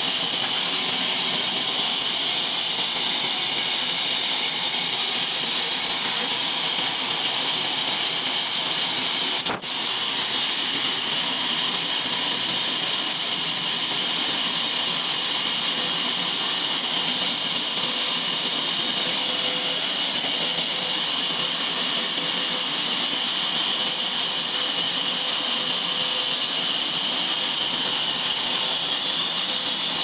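Band sawmill running steadily with no cut being made, a constant even hiss. The sound drops out for a moment about ten seconds in.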